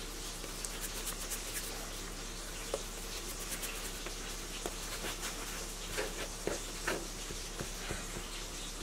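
Hands rolling and patting soft bread dough on a floured countertop: faint rubbing with a few light taps, most of them past the middle, over a steady background hiss and hum.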